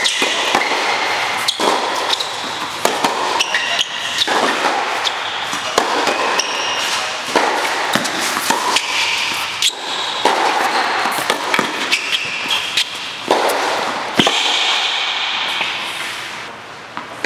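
Tennis rally: racquets striking the ball and the ball bouncing on an indoor hard court, a sharp pop every second or so, each echoing briefly in the hall.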